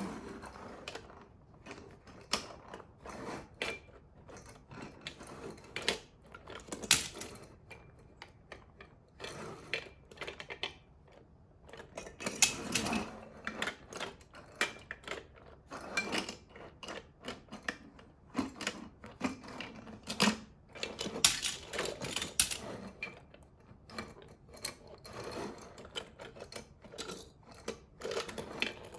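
Small diecast metal toy cars clicking and clattering in an irregular run of sharp little knocks as they are handled and set down against each other.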